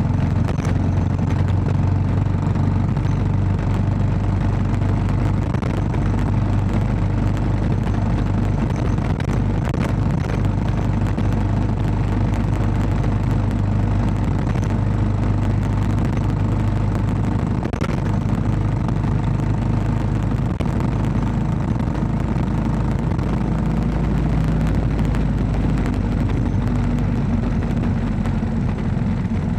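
Royal Enfield Classic 500's single-cylinder four-stroke engine running steadily under way, with the engine note shifting near the end.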